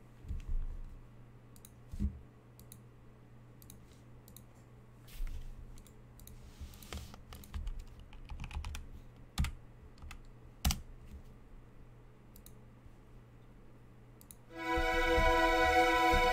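Sparse computer keyboard clicks with a few light knocks. Music starts near the end.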